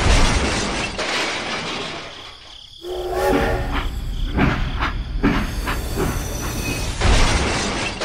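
Toy train and model vehicles clattering on a miniature railway, ending in a loud crash about seven seconds in as the train hits a trailer of toy bricks and they spill.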